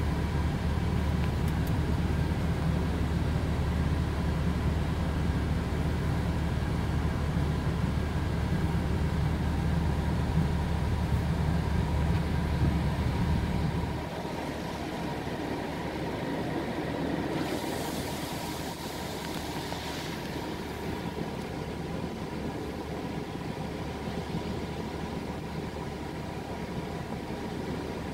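Automatic car wash running, heard from inside the pickup's cab: water spraying on the truck over a heavy low rumble that cuts off about halfway through. A quieter steady hum is left, and a few seconds later a burst of spraying hiss comes and goes.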